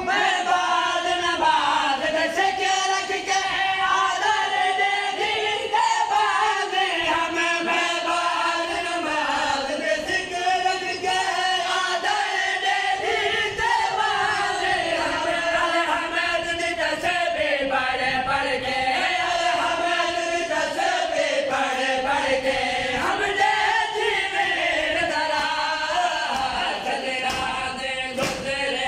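A group of men chanting a noha, a Shia lament for Muharram, amplified through a PA system, with the lead voice and the others singing together. Near the end, slaps of mourners' hands beating their chests in matam join the chant.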